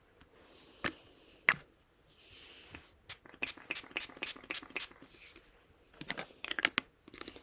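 Pump spray bottle of Mario Badescu facial mist: a couple of clicks, then short hisses of mist sprayed onto the face about two seconds in and again near five seconds. In between and after, a run of light taps and scrapes of hands patting the face and handling the bottle.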